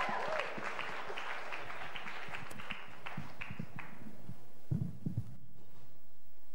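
Audience applauding, dying away about four and a half seconds in, followed by a few low thumps.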